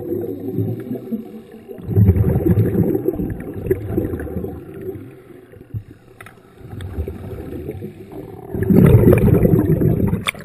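Scuba exhaust bubbles heard underwater: a low bubbling rumble in bursts a few seconds apart, the breathing rhythm of a diver on a regulator, loudest near the end.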